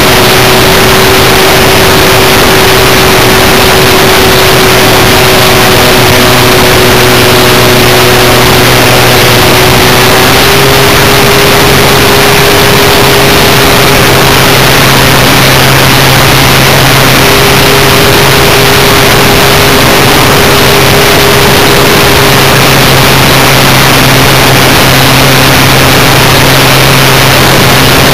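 RC model Cessna Skywagon's motor and propeller in flight, heard from an onboard camera: a loud, steady drone under a heavy rush of noise, its pitch stepping up slightly about ten seconds in.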